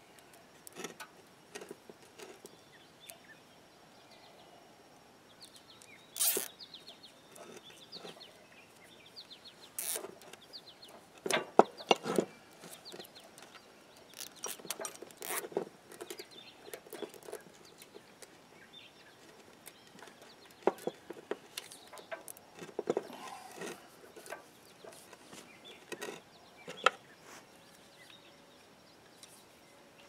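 Scattered clicks, knocks and rattles of hands working a steel winch cable, a swivel hook and plastic zip ties on a wooden bench, with a few louder knocks about a third and half of the way through.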